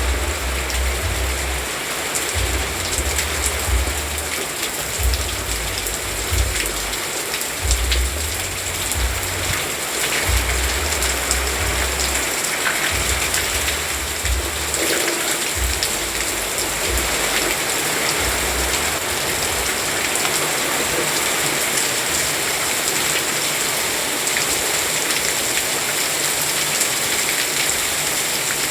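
Steady rain falling on a surface, an even hiss with scattered drop ticks. A low rumble comes and goes during the first half.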